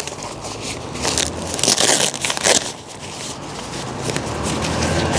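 Irregular crinkly rustling and crunching as tent fabric or groundsheet is handled and shifted.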